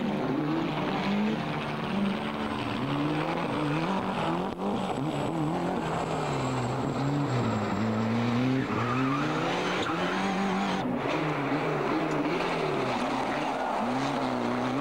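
Ford Escort Cosworth Group A rally car's turbocharged 2.0-litre four-cylinder driven hard, its revs climbing and dropping again and again through gear changes and corners.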